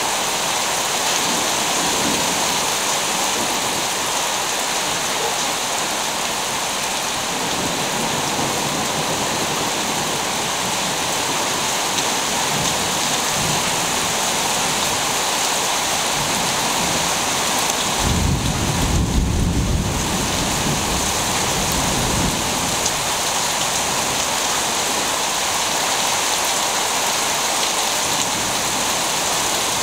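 Steady heavy rain falling, with a low rumble of thunder swelling up about two-thirds of the way through and dying away over a few seconds.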